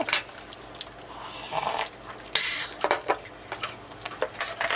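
Eating sounds at a table: chewing, with small clicks and taps of forks on plates. A brief noisy burst comes about two and a half seconds in.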